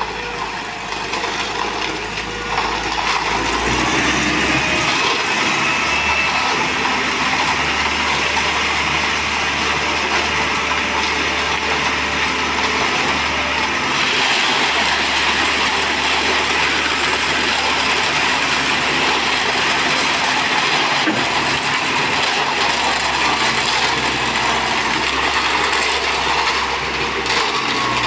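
Ajax hydraulic pump running on test, a steady mechanical drone with a faint high whine. It grows louder about four seconds in and then holds steady.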